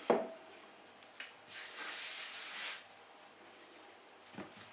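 Egg noodle dough being handled on a floured wooden board: a short knock just after the start, then about a second of soft rubbing hiss in the middle.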